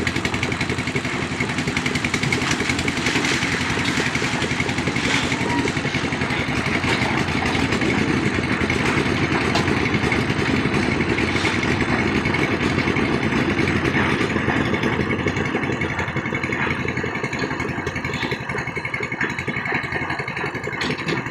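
Engine of a concrete mixer machine running steadily with an even, fast chugging rhythm, easing off slightly near the end.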